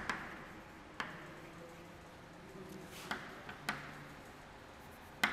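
Chalk writing on a chalkboard: a handful of sharp taps as the chalk strikes the board, spaced irregularly, with faint scratching between them.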